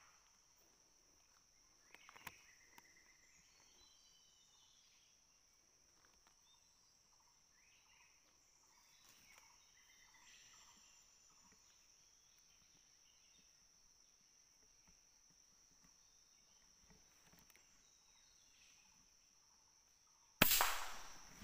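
Faint outdoor ambience with a steady high insect drone and scattered bird calls, then near the end a single loud hunting gunshot that dies away over about a second.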